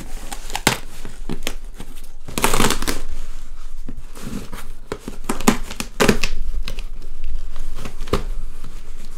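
Cardboard shipping box being torn open by hand: tearing and crinkling of cardboard and paper with short scrapes and knocks, and a longer rip about two and a half seconds in.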